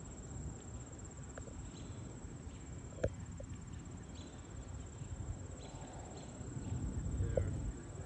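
Insects trilling in one steady high note, over a low rumble that swells near the end, with a sharp click about three seconds in.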